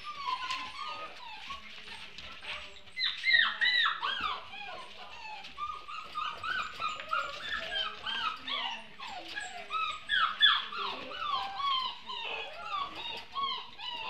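A litter of seven-week-old puppies whining and yipping: many short, high-pitched cries that drop in pitch, overlapping one another, louder and busier from about three seconds in.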